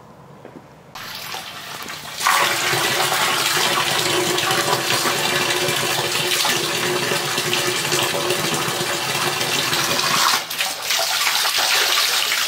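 Steady rush of water pouring out of a pond pump's discharge hose and splashing onto a metal box lid, starting about two seconds in.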